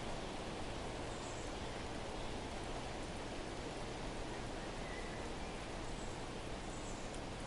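Steady outdoor background hiss with a few faint, brief high bird chirps scattered through it.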